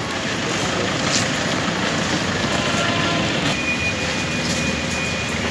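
Steady outdoor traffic noise, a dense even rumble and hiss with no pauses, with a thin high whine that sounds for about two seconds past the middle.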